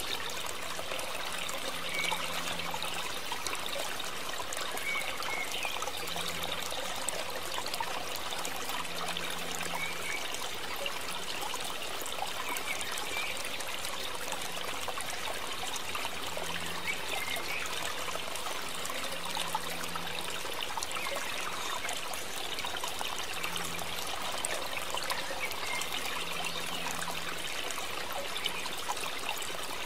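Water trickling steadily, with no break or change.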